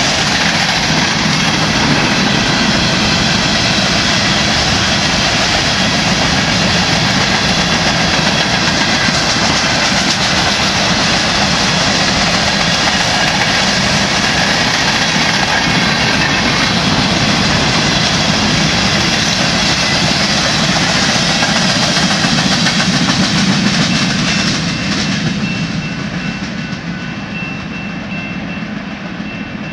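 Freight train of covered hopper cars rolling past close by, a loud steady rumble of steel wheels on rail with clickety-clack. About 24 seconds in the last car passes and the rolling noise fades, leaving a steady high ringing from the grade-crossing signal.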